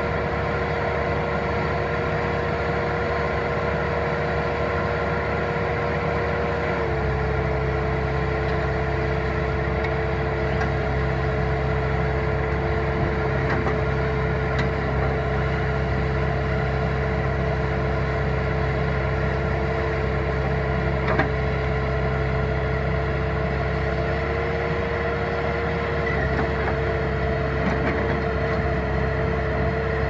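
Bobcat 873 skid steer loader's diesel engine running steadily while its backhoe attachment is worked. The engine note drops slightly and grows deeper about seven seconds in, and lifts a little near the end, with a single knock a little past the middle.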